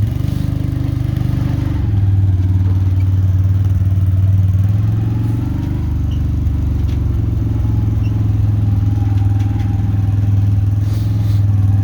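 Vehicle engine running steadily while driving, a low even drone with small changes in pitch.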